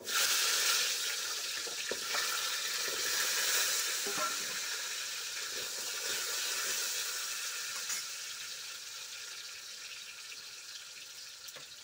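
Taro pieces dropped into hot oil in a karahi, sizzling loudly the moment they hit the oil, then slowly settling into a quieter, steady sizzle. A few light knocks come through the sizzle.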